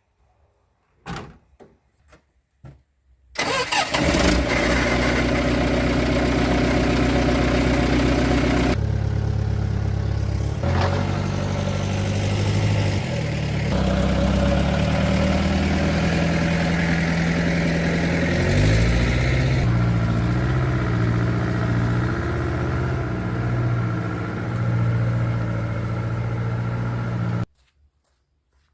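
A few knocks, then a vintage truck engine starts suddenly and runs loudly, its speed shifting up and down several times, before cutting off suddenly near the end.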